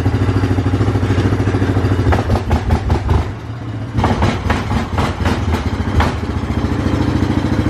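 Vehicle engine idling with a steady low pulse while being backed up. Its level drops briefly a little past three seconds in, and a run of knocks and clatter follows around four to six seconds in.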